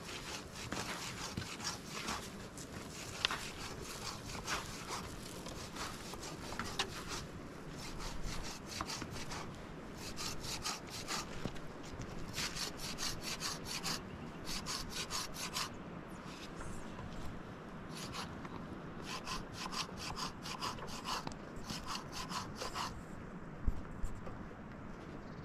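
Rapid, rhythmic scraping strokes, coming in runs of one to several seconds with short pauses between.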